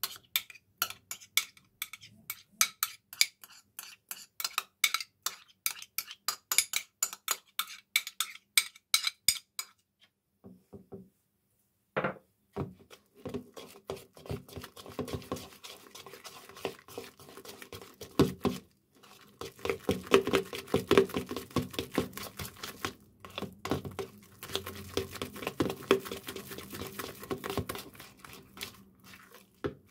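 Metal spoon scraping and tapping against a plastic container, a quick run of clicks at about three to four a second for the first ten seconds. After a short pause, a hand kneads sticky black liquid-soap slime in a plastic bowl, giving a steady wet squelching.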